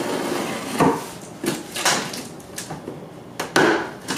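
Kitchen knife slicing through the packing tape of a cardboard shipping box, several separate scraping and ripping strokes.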